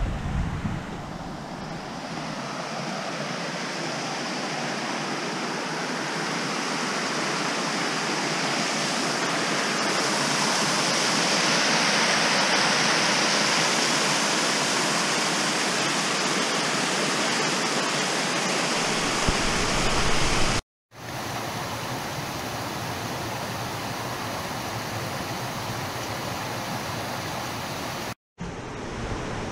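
Creek water rushing over small rocky cascades, a steady hiss of running water that swells a little midway and cuts out briefly twice near the end.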